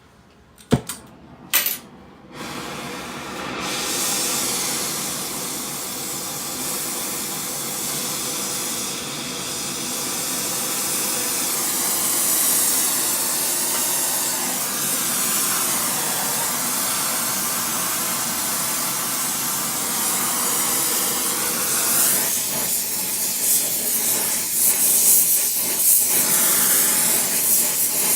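A couple of sharp clicks, then a brazing torch starts hissing about two seconds in and keeps hissing steadily, growing a little louder and more uneven near the end, as it heats the iron for brazing.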